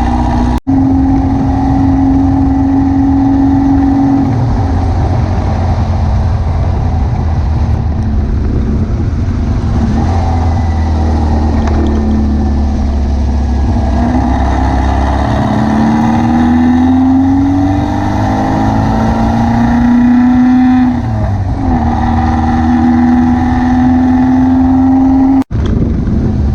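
VW beach buggy's engine running on the road under way, with wind and road noise. Its pitch climbs steadily as the buggy accelerates through a gear, drops at a gear change and then holds steady. The sound cuts out for an instant twice.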